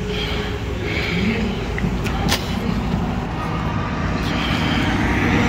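A vehicle engine running steadily in the background, with one sharp click about two seconds in.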